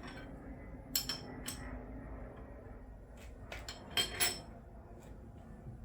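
Metal parts of a milling machine setup clinking and knocking together as they are handled and repositioned: two pairs of sharp metallic clinks with brief ringing, about a second in and about four seconds in, over a low steady hum.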